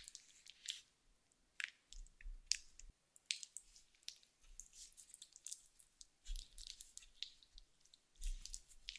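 Hands folding sticky stollen dough over a marzipan log and pressing it into shape: close, quiet squishes and crackles of the dough, with a few soft thuds as it is patted down.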